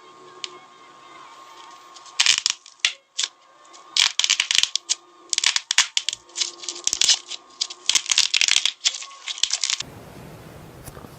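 Slime being squeezed and poked, giving irregular bursts of crackling and popping clicks that start about two seconds in and stop a little before the end.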